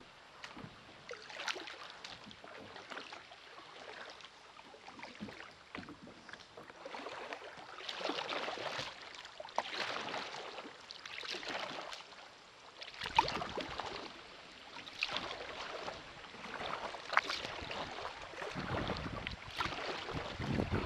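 Kayak paddle strokes dipping into river water, a splashing swish about every one and a half to two seconds. In the second half, wind rumbles on the microphone underneath.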